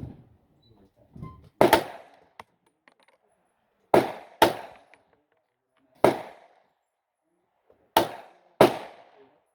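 Six gunshots, spaced one to two seconds apart, with two quick pairs about half a second apart, each followed by a short echo.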